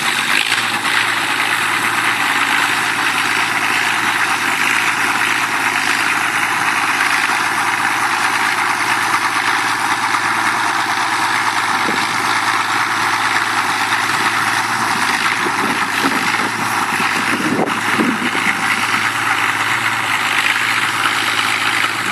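Fordson Super Major tractor's diesel engine running steadily.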